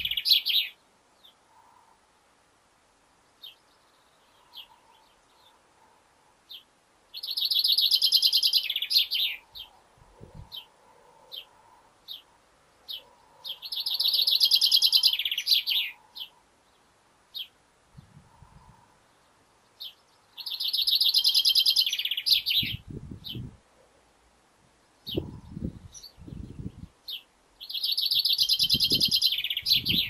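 A male chaffinch sings its song phrase over and over, one phrase about every six to seven seconds. Each phrase is a fast run of notes about two seconds long that drops lower at the end, and short single chirps fall in the gaps. A few low thumps are heard in the second half.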